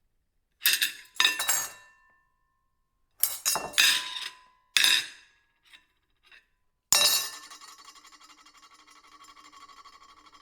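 Ceramic plates clinking: several sharp clinks, mostly in quick pairs, each with a short ring, and two faint ticks. Near the end a loud strike rings on with a fast, wavering rattle.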